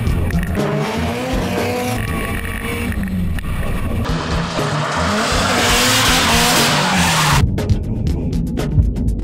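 Rear-wheel-drive Subaru Impreza drift car: the engine revs up and down while the tyres squeal and skid. The tyre noise swells about halfway through, and near the end the sound breaks into a quick run of sharp pops and cut-outs.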